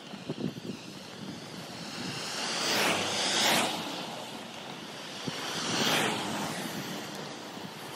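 Road traffic: two cars pass close by in turn, their tyre and engine noise swelling and fading, the first loudest about three and a half seconds in, the second about six seconds in.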